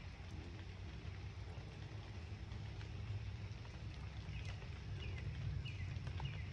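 Open-air ambience: a steady low rumble, with a small bird giving short, high chirps about every half second in the second half.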